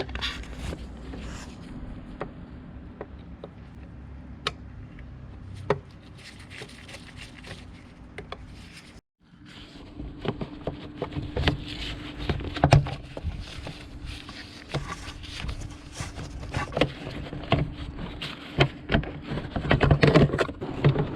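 Irregular clicks, knocks and scrapes of the airbox being unclipped and pulled out of the engine bay, busier toward the end, over a steady low hum. The sound cuts out briefly about nine seconds in.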